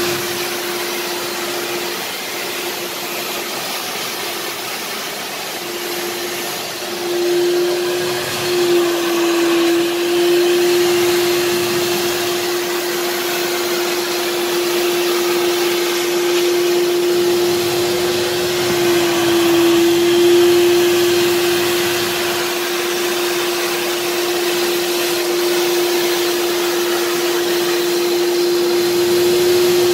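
Kärcher Puzzi 10/1 spray extractor's suction motor running steadily: a constant whine over a rushing hiss of air drawn through the upholstery nozzle as it passes over a carpeted floor mat. It gets louder about seven seconds in.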